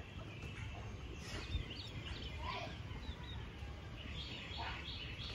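Faint bird chirps over a low steady background rumble: a few scattered calls, then a quick run of about four near the end.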